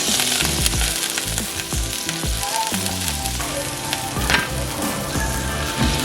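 Food frying in hot fat, a steady crackling sizzle, with one sharp tap about four seconds in.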